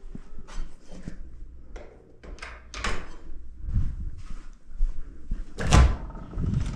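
Several short knocks and clatters, with one louder thump about six seconds in.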